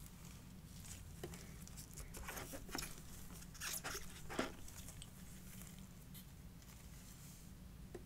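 Fragrance packaging being handled during unboxing: a run of soft rustles and small knocks for about three seconds, the sharpest a tap about four seconds in.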